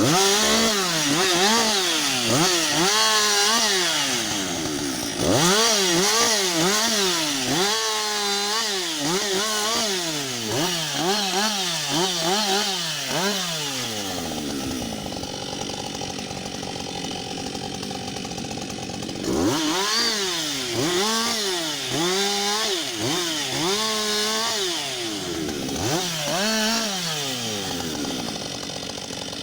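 Husqvarna 560 XP two-stroke chainsaw revving up and down about once a second as it cuts wood. For a few seconds in the middle it settles to a steadier, lower note.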